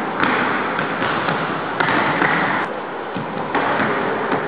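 Basketballs bouncing on a wooden gym floor, irregular thuds echoing around the hall.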